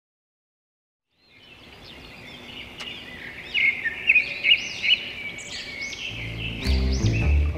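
Birds chirping and twittering, fading in after about a second of silence, with many short repeated calls. Background music with a low bass line comes in near the end.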